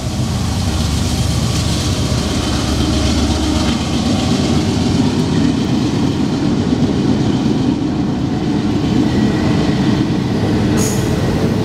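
Double-stack intermodal container train rolling beneath the bridge: a steady, loud rumble of the cars' wheels on the rails, with a brief high squeak near the end.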